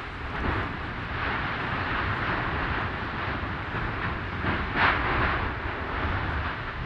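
Lava fountains of the 2022 Fagradalsfjall eruption, a continuous low rumble of gas and spattering lava. Louder surges come about half a second in and, strongest, a little under five seconds in.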